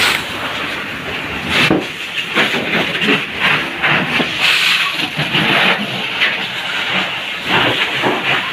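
Fire hose nozzle spraying a jet of water, a steady hiss with irregular splashes as the water strikes walls and a roof.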